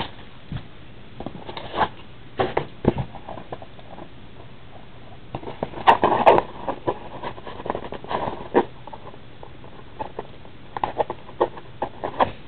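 Hands handling and picking at a trading-card box, trying to open it. Irregular scratches, taps and rustles, busiest about six seconds in.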